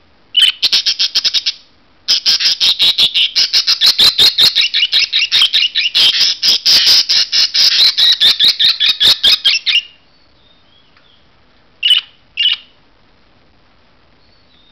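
Budgerigars chattering in fast, high-pitched pulsing chirps: a short burst, then a long run lasting about eight seconds, followed by two single chirps near the end.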